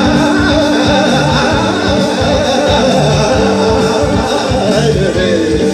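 Live male vocal in a Hindustani classical style, sung without words in wavering, ornamented runs, over a band of keyboard, bass guitar and percussion playing a steady beat through the stage PA.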